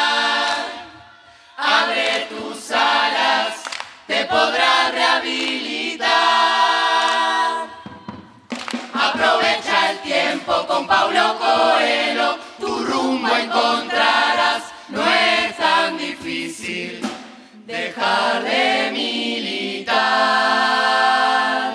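Murga chorus singing in multi-part harmony, in sung phrases separated by short breaks. Two phrases end on long held chords, about six seconds in and near the end.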